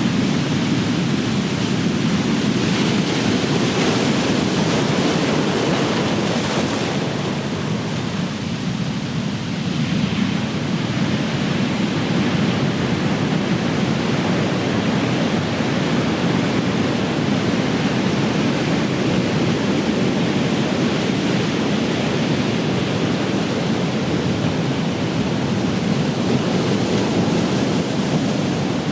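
Ocean surf: big waves breaking and washing in a continuous rush, with a brighter hiss of a breaking wave a few seconds in.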